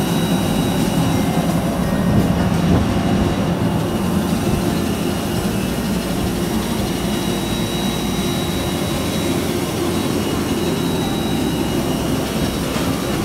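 Jet aircraft noise on an airport apron: a steady roar with a thin high whine held throughout, and wind buffeting the microphone.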